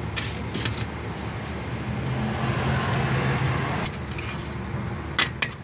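Steady low hum of a running engine, with light clicks of copper wires knocking on the metal tabletop, twice near the start and twice near the end.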